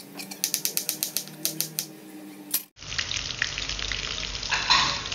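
A knife slicing starfruit on a cutting board, quick even chops about five a second. Then, after a cut, tofu pieces sizzling and crackling as they fry in hot oil in a wok, swelling briefly near the end.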